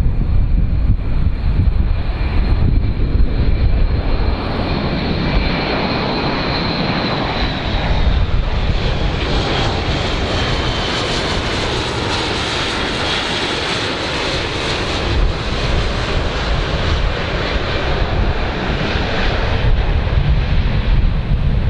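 Airbus A400M's four Europrop TP400 turboprops and eight-bladed propellers running as the transport flies low past, a heavy drone with a high turbine whine that drops in pitch around the middle as it goes by.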